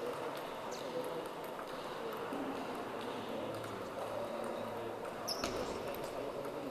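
Table tennis ball knocking off bats and table during a serve and rally, a few sharp clicks with a cluster about five seconds in, over the steady background noise of a large sports hall.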